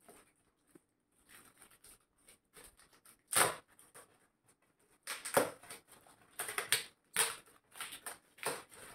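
Shiny red metallic-foil gift wrapping crinkling and rustling in the hands as it is pulled open, in irregular crackly bursts. The loudest comes about three and a half seconds in, and more follow in quick clusters after the five-second mark.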